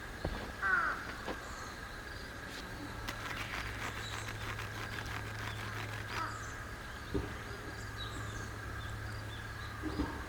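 Quiet outdoor ambience with a single short bird call a little under a second in, over a faint steady high tone and a low hum, with scattered light clicks.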